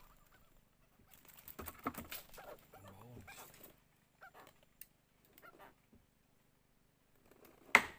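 Handling noises in a wooden boat as a freshly caught fish is dealt with and a rod is handled: scattered clicks and rustles with a brief low croaking sound about three seconds in, then one sharp knock just before the end, the loudest sound.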